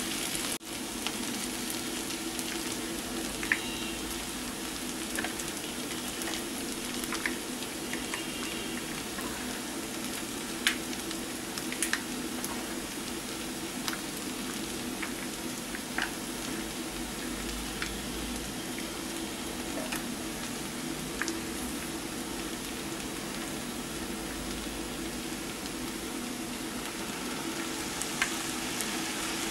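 Sliced onions and curry leaves frying in oil in a pan, a steady sizzle, with a few light clicks scattered through it.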